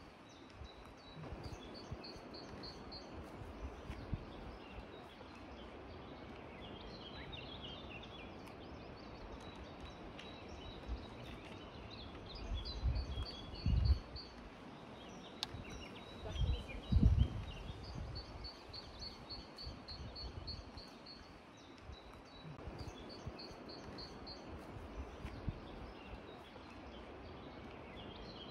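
Songbirds singing in open country: short, high, rapid trills repeated every few seconds, with twittering in between, over a steady background hiss. Wind buffets the microphone twice around the middle.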